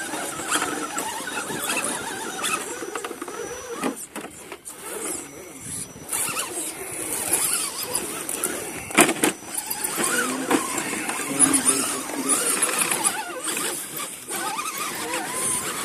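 Electric motors and gear drives of RC rock crawlers whining as they climb a steep dirt ledge, the pitch rising and falling with the throttle, with a few sharp knocks.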